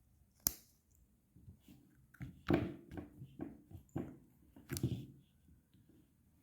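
A scatter of short clicks and knocks from something being handled: one sharp click about half a second in, then a cluster of knocks through the middle.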